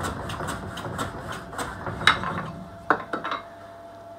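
Hand plane running along a shooting board in quick, even strokes, about four a second, trimming the 45-degree mitred end of a wooden frame moulding. The strokes stop about halfway through, followed by two sharp knocks a second apart.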